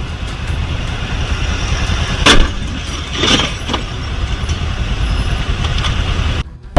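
Road vehicle driving, a steady low rumble of engine and road noise, with a short sharp noise about two seconds in and a brief hiss a second later. The sound cuts off suddenly near the end.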